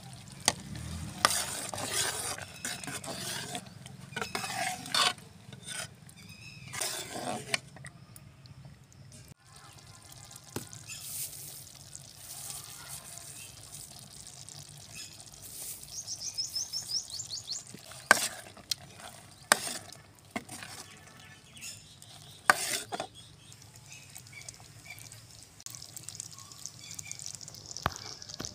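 A metal ladle stirring thick daal chana in a cooking pot, with irregular scrapes and clinks against the pot.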